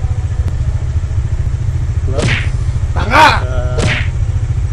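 Kawasaki Dominar 400's single-cylinder engine idling at a standstill, with a steady low pulsing rumble. Over it are two short whip-like swishes, and a brief voice-like cry rising and falling about three seconds in.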